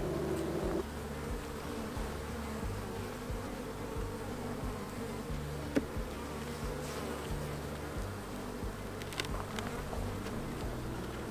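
Honey bees buzzing in a steady, many-toned hum around a hive under inspection, with a louder close buzz in the first second that stops suddenly. A couple of light clicks come through midway and near the end.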